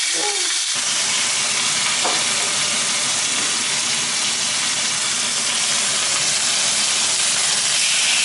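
Beef steaks sizzling steadily as they fry in a hot, oiled nonstick frying pan.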